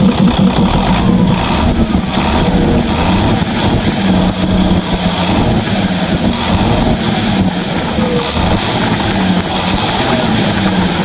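Mitsubishi Fuso 6D15 six-cylinder diesel engine running, its injection pump timing just advanced slightly to restore power. The engine speed rises and falls several times as the throttle lever on the injection pump is worked by hand.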